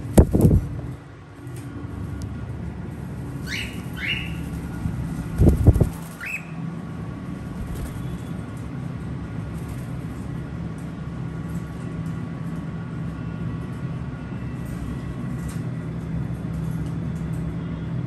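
Cockatiel wings flapping as it flies off a wire cage door: a loud flurry near the start and another about five and a half seconds in. Three short rising bird chirps come between and just after, over a steady low hum.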